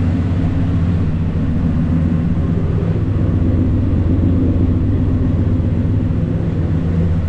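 Exhaust of a 1969 Chevelle's small-block Chevy 350 V8, rebuilt with Vortec heads and a Comp Cams roller valvetrain, idling steadily as a low, even rumble on its first start.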